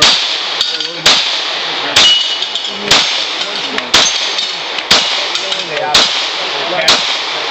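Handgun shots fired at a steady pace, about one a second, eight in all, with a metallic ring after one of them.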